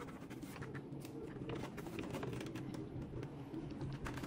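Short clicks and light rattles of a Traxxas Unlimited Desert Racer (UDR) RC truck's plastic body and suspension as it is handled and turned over, many times over a steady low hum.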